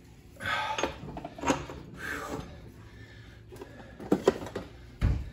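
Metal tools being worked at a workbench: scattered clicks and knocks over several seconds, with one heavier low thump near the end.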